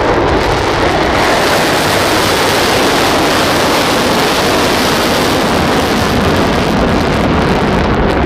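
Missile's rocket motor firing at launch: a loud, steady rushing noise.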